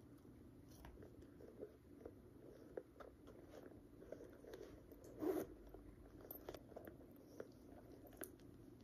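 Faint handling noise of a leather handbag and its crossbody strap: scattered small clicks and taps of the metal hardware and rustling, with a louder rustle about five seconds in.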